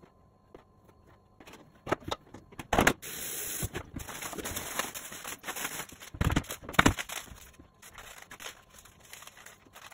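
Kitchen handling noises: scattered clicks and knocks, a rustling hiss lasting about two seconds from about three seconds in, two heavy thumps around six to seven seconds in, then light crinkling and ticking.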